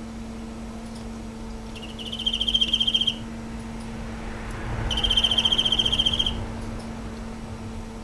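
Emma field cricket (Teleogryllus emma) singing: two trilled chirps of about a second and a half each, around two and five seconds in, over a steady low hum.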